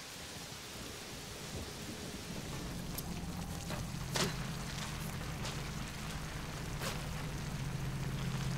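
Film soundtrack of steady rain at night, with a low steady hum coming in a couple of seconds in and slowly growing louder, and a few sharp ticks or knocks.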